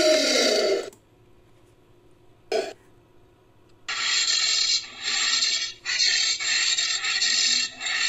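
Made-up creature sound effects for the extinct anteater-like Eurotamandua, built from real anteater recordings. A short call that rises and falls in pitch ends about a second in, a brief grunt-like sound follows near the 2.5-second mark, and from about four seconds a long rasping hiss runs on, broken by a few short pauses.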